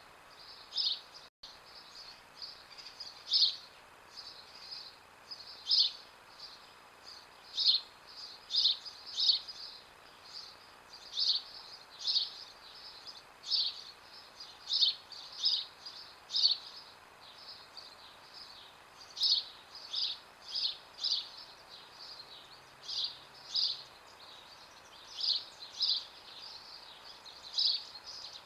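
A bird calling with short, high chirps, repeated at an uneven pace of about one a second, over a faint steady hiss.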